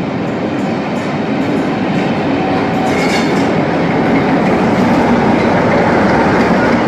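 Passenger train coaches rolling past close by: a steady, loud rumble of wheels on the rails that grows slightly louder toward the end.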